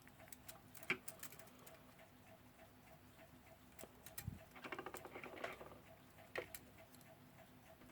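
Faint, rapid, steady ticking of a running mechanical clock, with a few light clicks and a brief rattle of small metal clock parts being handled about halfway through.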